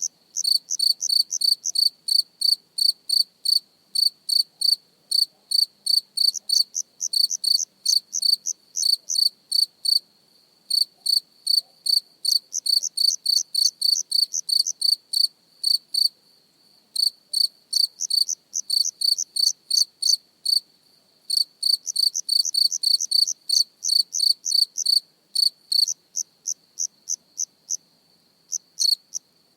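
A cricket chirping close up: short, high chirps at about three to four a second, in runs broken by pauses of about a second, and softer for a few seconds near the end.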